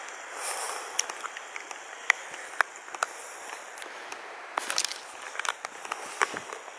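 Footsteps on a loose stony path, sharp clicks of stones under the feet about two a second, over a faint steady hiss.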